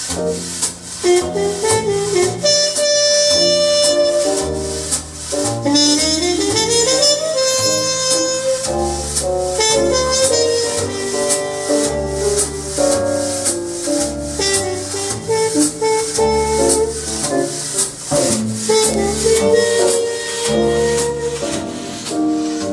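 Jazz-style music played back over Marten hi-fi loudspeakers in a show demo room: a steady beat of cymbal ticks over a walking bass line, with a melodic lead on top.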